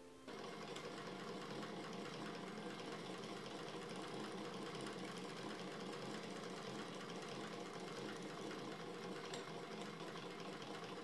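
Vintage black Singer sewing machine running steadily, with a rapid, even ticking from its needle and shuttle mechanism. It starts suddenly just after the beginning.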